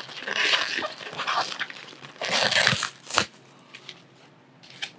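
Plastic cling wrap crinkling and crackling as it is peeled off a foam meat tray, in a run of bursts over the first three seconds, then only a few faint ticks.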